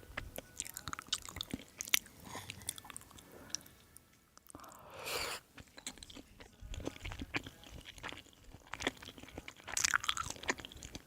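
Close-miked chewing and crunching of food, with irregular wet clicks and crackles of the mouth, and a brief louder rush of noise about five seconds in.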